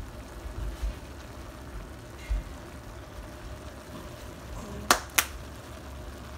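Ground beef cooking in a frying pan with a faint steady sizzle, a few low handling bumps, and two sharp clicks about a third of a second apart about five seconds in, as the plastic garlic powder shaker is handled.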